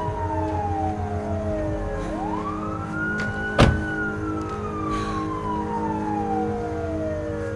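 An emergency-vehicle siren wailing, its pitch sliding down, rising quickly, then falling slowly again, over a steady low hum. A single sharp knock about three and a half seconds in is the loudest moment.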